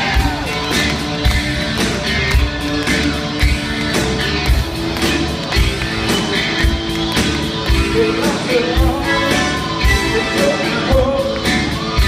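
Rock song with lead vocals over a steady drum beat and electric guitar, played loud through a hall's sound system.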